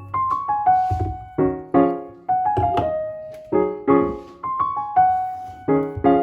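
Background piano music: soft chords and single notes struck at an unhurried pace, each dying away.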